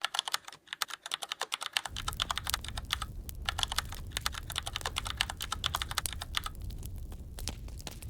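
Dense run of rapid sharp clicks that thins out near the end, joined about two seconds in by the low steady rumble of a fire.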